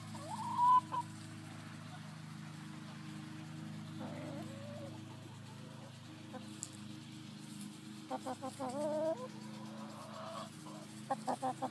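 Backyard chickens calling and clucking: a loud rising call about half a second in, a softer call around four seconds, and quick runs of clucks near eight seconds and again near the end, over a steady low hum.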